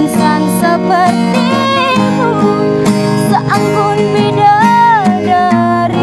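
A woman singing a Malay ballad in a high voice with ornamental turns (cengkok), accompanied by a strummed acoustic guitar. About four and a half seconds in, she holds one note that bends up and back down.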